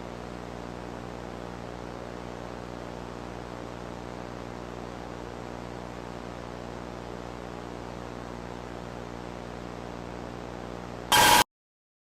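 Steady electrical hum with a layer of static hiss, like a television off-air. About a second before the end it ends in a brief loud burst, then the sound cuts off completely.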